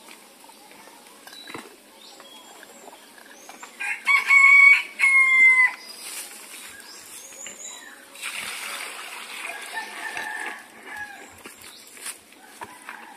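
A rooster crowing once, about four seconds in: a loud pitched call of roughly two seconds in two parts, the second falling at its end. A quieter, noisier stretch follows about eight seconds in.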